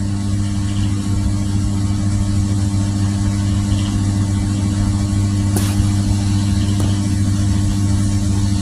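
A steady low hum with a faint hiss above it, and a single brief click about five and a half seconds in.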